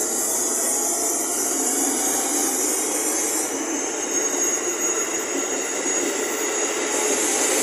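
JR 205 series electric commuter train running past, a steady loud rushing of wheels and running gear with a thin high whine over it.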